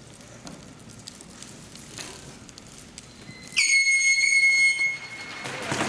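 Faint clicking of abacus beads and pencils in a quiet room, then about three and a half seconds in a single loud, high-pitched signal tone held for about a second and a half: the time-up signal ending a timed abacus test. Near the end, a murmur of voices and movement rises.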